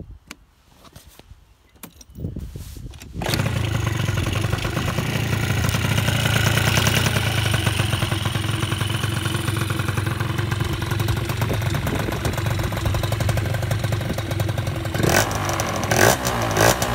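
Honda SFX 50 scooter's two-stroke single-cylinder engine, freshly rebuilt with a new cylinder, being started: a few clicks and knocks, then it catches about three seconds in and runs steadily. It gives two short louder bursts near the end.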